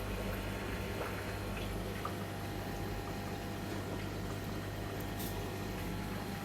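Nano aquarium's internal filter running: a steady low pump hum with water bubbling and trickling.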